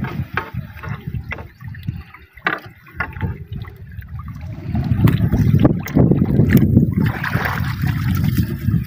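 Water splashing and trickling off a wet fishing net as it is hauled in over the side of a small outrigger boat, with small taps and knocks. The water noise grows louder and denser about halfway through.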